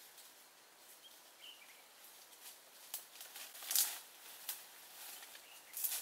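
Chimpanzee breaking a stick in leafy undergrowth to make a digging tool: scattered dry crackles and snaps of wood and leaves, loudest a little before four seconds in and again near the end. Faint bird chirps about a second in.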